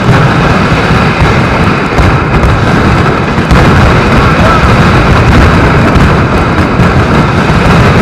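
Mascletà firecrackers detonating in a dense, unbroken barrage of very loud bangs, getting louder about three and a half seconds in.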